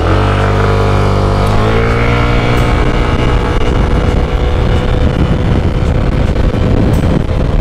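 Yamaha Aerox scooter's single-cylinder engine pulling hard from a standing start under full throttle, running on a standard NGK spark plug. The engine note climbs over the first two seconds and then holds at a steady pitch while wind and road noise build with speed.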